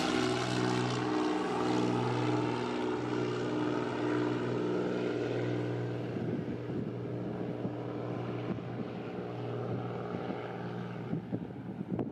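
Britten-Norman Trislander's three piston engines and propellers droning steadily as the aircraft passes and draws away, the tone sliding slightly lower in pitch and fading a little.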